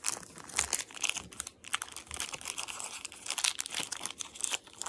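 Crinkly plastic snack-cake wrapper rustling and tearing in irregular crackles as fingers pick and pull at it, struggling to get it open.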